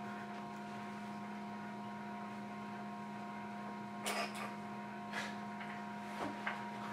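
Steady electrical hum under quiet room tone, with a few faint short noises about four, five and six seconds in.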